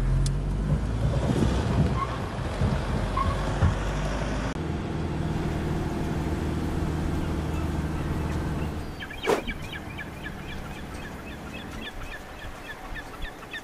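Car driving along a road, heard from inside the cabin: steady engine and road noise. About nine seconds in, this gives way to birds calling in quick, short, repeated chirps, quieter than the car.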